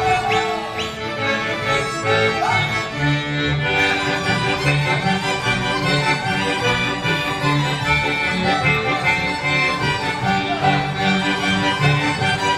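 Lively Polish folk dance music led by accordion and fiddle over a steady, evenly pulsing bass beat.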